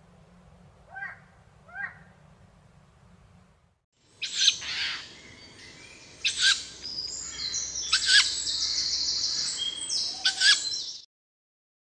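Tawny owl calls: two short calls about a second apart, then, after a brief break, four loud, harsh calls spaced roughly two seconds apart over a steady high-pitched chirring background, cutting off abruptly just before the end.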